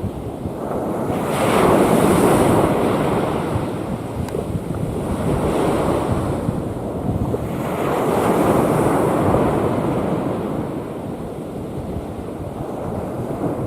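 Rough sea waves breaking and washing in as a steady surf roar that swells louder every few seconds, with wind rumbling on the microphone.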